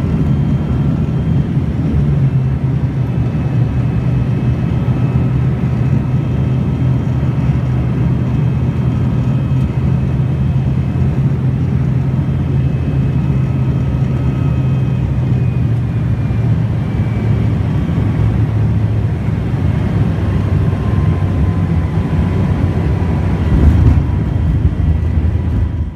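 Cabin noise of a high-wing airliner on final approach: a loud, steady low drone with thin engine whines that slowly fall in pitch. About 24 seconds in the noise briefly gets louder as the wheels touch down on the runway.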